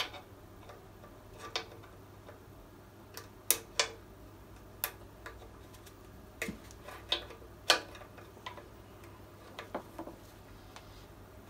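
Hand ratchet wrench clicking as it works a bolt on a car engine: sharp metallic clicks at irregular intervals, roughly a second or more apart, a few in quick pairs.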